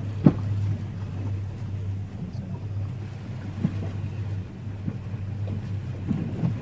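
Speedboat engine running with a steady low hum, with irregular low thumps over it and a sharp knock about a quarter second in.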